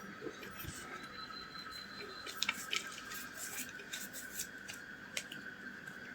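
Hands kneading sticky flour-dough fishing bait in a plate: faint squishing with scattered light clicks and taps against the plate, over a faint steady hum.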